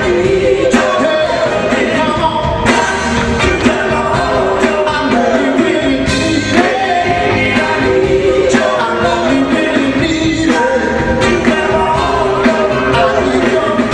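Music: a song with singing over a band with drums.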